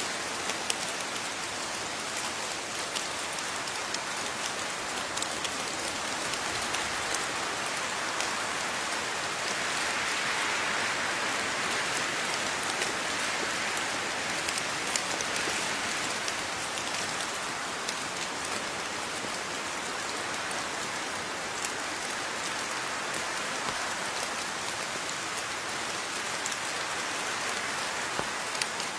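Steady rain falling on a surface, an even hiss dotted with many small sharp drop ticks, swelling slightly a third of the way in.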